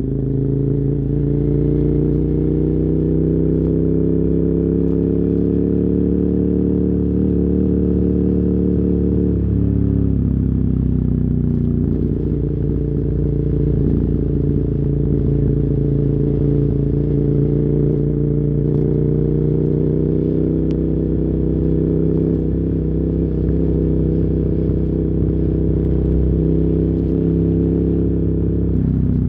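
KTM 990 Super Duke R's V-twin engine through dual Yoshimura carbon exhausts, pulling at steady cruising revs. About ten seconds in the revs sag briefly as the throttle eases, then climb back and hold, dropping again near the end. It is heard muffled through a phone microphone in the rider's backpack.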